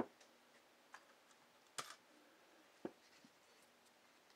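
A handful of light clicks and taps as pieces of a backpacking cook kit are handled and set into an aluminium pot, over otherwise near silence; the loudest click comes nearly two seconds in.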